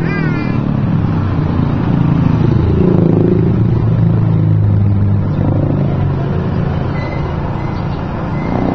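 Street traffic: a motor vehicle's engine running close by, growing louder a couple of seconds in and easing off again, over a steady hum of street noise.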